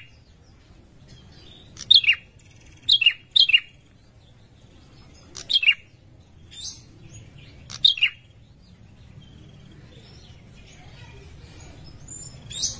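Male prenjak lumut, a rufous-capped tailorbird, giving its breeding-season call to attract a female: short, sharp notes that slide down in pitch, singly or in quick pairs, with a few seconds' pause before one more near the end.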